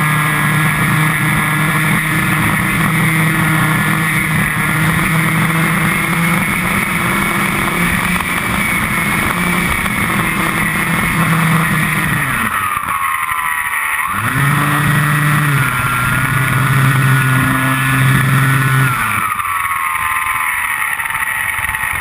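Model glider's motor and propeller running with a steady whine over rushing wind. About two-thirds of the way through, the motor is throttled off and its pitch drops away; it comes back on for a few seconds, then winds down again near the end.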